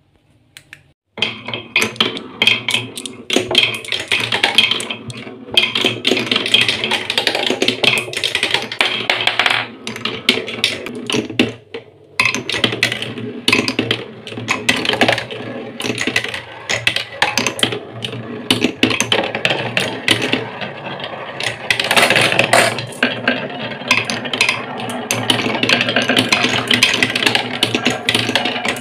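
Glass marbles start rolling about a second in and run on down a wooden marble run: a steady rolling rumble full of quick clicks as they knock against the wooden rails and each other, with a couple of brief lulls.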